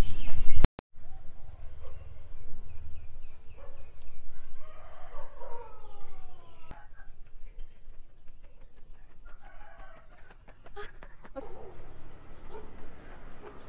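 A rooster crowing: a long call with several falling strands a few seconds in, and a weaker call a few seconds later, over a steady high-pitched whine. Under a second in, a loud low rumble cuts off abruptly.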